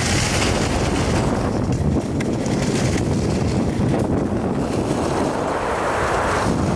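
Wind rushing and buffeting over the microphone of a camera carried downhill on skis, with the hiss of skis sliding over snow swelling near the end.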